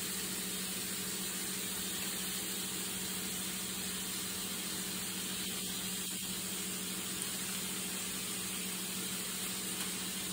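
A steady low hum with an even hiss over it, like a running motor or appliance, holding one level throughout.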